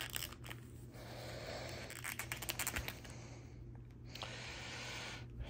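Handling noise from a plastic action figure as a replacement head is worked onto it: faint scrapes, with a quick run of small plastic clicks about two seconds in.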